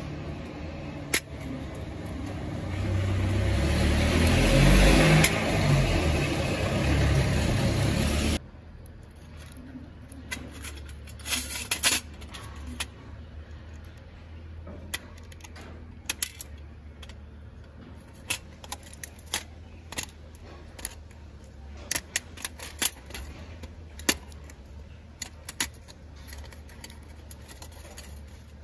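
A loud rushing rumble swells and then cuts off suddenly about eight seconds in. After it come scattered sharp little clicks and taps of metal on metal: a watchmaker's screwdriver working on the watch movement, and small parts set down on a stainless steel tray.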